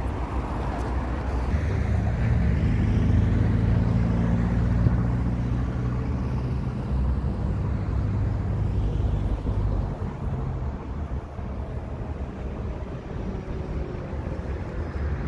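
A large engine running close by, its low hum building to its loudest a few seconds in and fading away after about ten seconds, over steady outdoor city noise.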